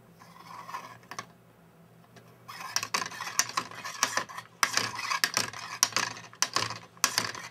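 Plastic indexing-drive model, a Geneva-type mechanism with a single indexing finger, spun quickly by hand: the finger and locking rim of the driving wheel clatter against the pins of the driven wheel as it indexes, a fast run of sharp clicks. The clicking starts about two and a half seconds in, with brief pauses near the middle and near the end.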